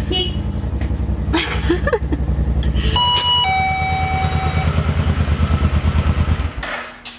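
A vehicle engine running with an even, pulsing rumble, then shut off about six and a half seconds in. Short electronic beeps sound about three seconds in.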